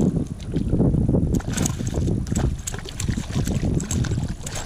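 A hooked fish splashing and thrashing at the water's surface beside a kayak, in a run of irregular splashes, with wind buffeting the microphone.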